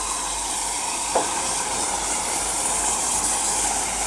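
A storm match burning submerged in a glass of liquid nitrogen: a steady loud hiss as the match flares and the nitrogen boils off around it. One brief click about a second in.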